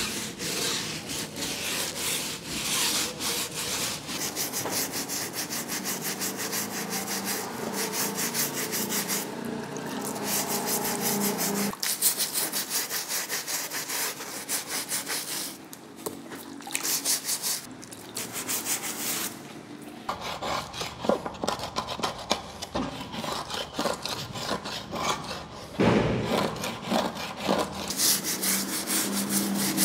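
Hand scrub brush scrubbing the wet, soapy rubber of a motorcycle tyre, in quick repeated back-and-forth strokes.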